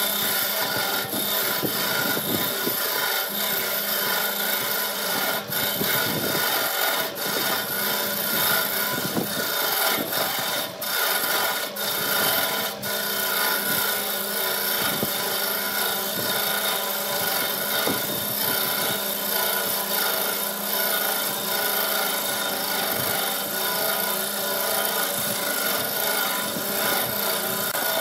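Wood lathe running while a hand-held turning tool cuts a spinning multi-coloured glued-up wood blank: a steady scraping hiss of the cut over the lathe's motor hum, with a few brief clicks along the way.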